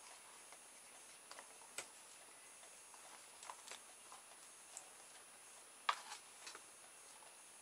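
Faint, irregular light clicks and taps from a hollow plastic toy boat hull being handled and turned over, the sharpest click about six seconds in.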